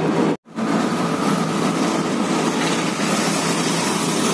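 Auto-rickshaw engine and road noise heard from inside the open cabin while riding, a steady drone. It cuts out abruptly for a moment about half a second in, then carries on.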